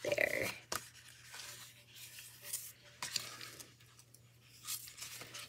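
Paper pages of a sticker book being flipped and handled, rustling, with a louder rustle at the start and a few light clicks.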